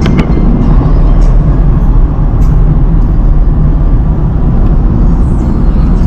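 Car on the move: a loud, steady rumble of road and wind noise, heaviest in the low end, with a few clicks right at the start.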